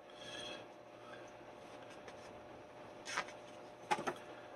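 Paper pages of a printed booklet being turned by hand: two short swishes, about three and four seconds in, with faint paper handling between.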